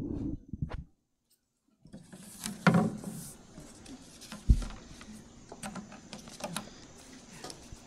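Microphone handling noise: bumps and rustles as a microphone is handled, then a silent gap of about a second. After the gap come rustling and knocks at a lectern microphone, with one sharp low thump about four and a half seconds in.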